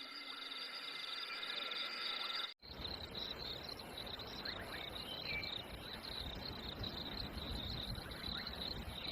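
Outdoor wildlife ambience: a steady high-pitched trilling chorus over a background hiss. The sound drops out briefly about two and a half seconds in, then the same trill returns with more noise beneath it.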